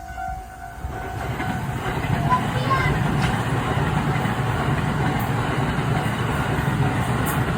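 A train runs through a level crossing. Its noise builds over the first two seconds and then holds steady, while the crossing's warning bell keeps ringing faintly underneath.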